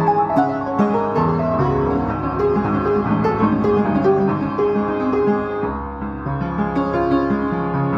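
Solo piano playing a classical piece: a steady flow of notes in the middle register over held bass notes, with the bass changing about a second in and again near six seconds.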